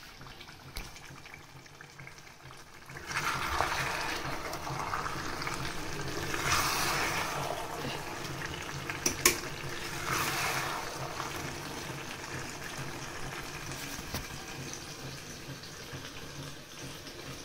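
Steel ladle stirring cabbage and potato curry in an open stainless-steel pressure cooker, the vegetables sizzling and scraping in three spells. One sharp metal clink comes about nine seconds in.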